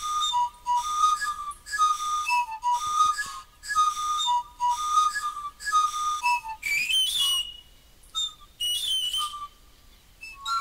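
Piloilo, a Mapuche panpipe, blown in a short two-note figure, higher note then lower, repeated about once a second. Partway through come two higher, shrill blasts that slide upward, and the low figure returns near the end.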